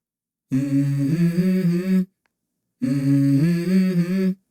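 A voice humming a short melodic phrase twice, each phrase stepping up in pitch partway through, with a brief silence between.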